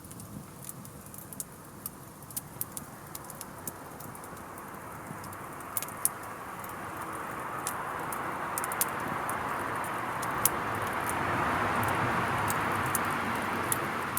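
Wood fire burning in a steel fire pit, crackling with sharp irregular pops, while a soft rushing sound swells from about halfway in and is loudest near the end.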